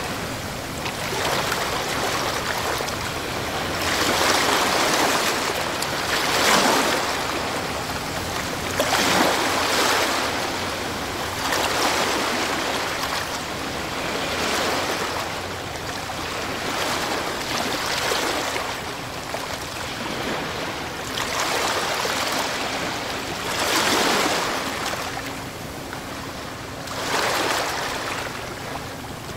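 Sea waves breaking and washing up a beach, the surf swelling and falling back every two to three seconds.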